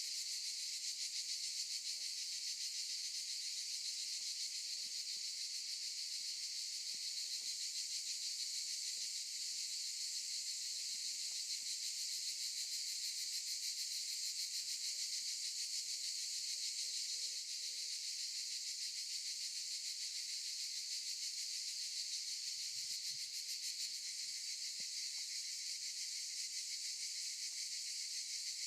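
Cicadas chorusing: a continuous, dense high-pitched buzz with a fast pulsing texture, easing slightly near the end.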